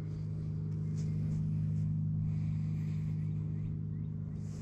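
A vehicle engine running with a steady low hum, growing a little louder toward the middle and then easing off.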